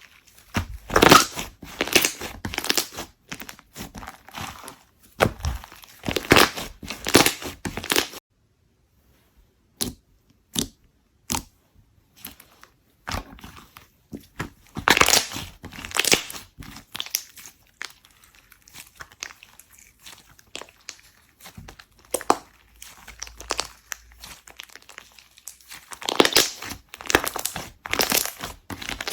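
Slime being squeezed and pressed by hand, giving repeated bursts of dense crackles and pops. There is a short silent break about eight seconds in, then a few scattered pops before the bursts pick up again.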